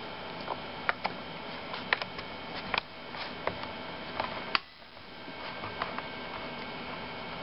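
Scattered small sharp clicks of a plastic laptop back panel being pressed and snapped into place, about half a dozen over several seconds, over a steady faint hum.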